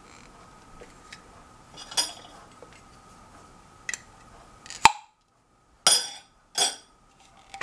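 Glass jar with a metal screw lid being handled: light clinks, a sharp click about five seconds in, then two short scraping noises about a second apart near the end.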